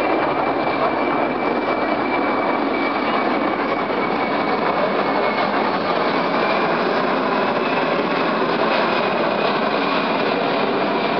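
Boeing C-17 Globemaster III flying low overhead with its landing gear down, on approach: a loud, steady jet roar from its four turbofan engines, with a thin high whine above it through the first half.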